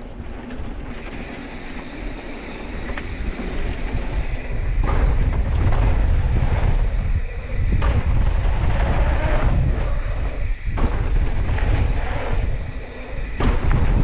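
Wind buffeting the microphone of a camera on a Pivot Switchblade mountain bike riding fast down a dirt jump trail, with the rumble of the bike over packed dirt and several sharp knocks. It grows louder about four and a half seconds in as speed builds.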